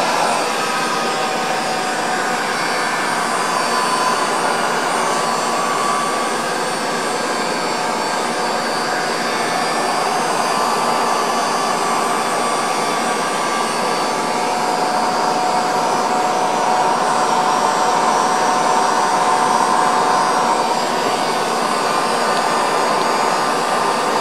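Electric heat gun running steadily, its fan blowing hot air with an even rush and a faint whine, shrinking heat shrink tubing over a soldered wire joint.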